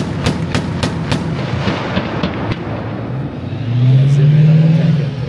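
Bradley fighting vehicle's 25 mm autocannon firing a steady string of rounds, about three a second, stopping a little over a second in. From about three and a half seconds in, the vehicle's engine runs up loudly as it pulls out of its firing position.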